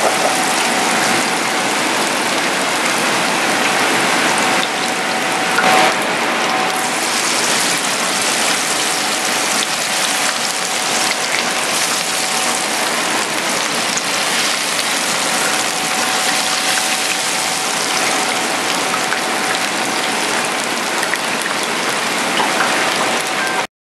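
Light tempura batter frying in a commercial deep fryer of hot oil: a steady, crackling sizzle that cuts off suddenly near the end.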